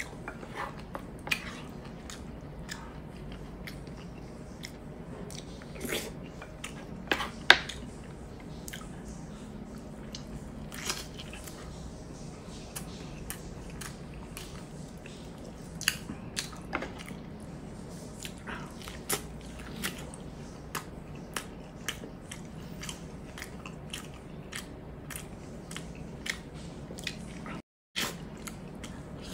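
Mouth sounds of eating pork hock and rice: chewing and biting, with many short smacking clicks and a few louder ones around six to eight seconds in.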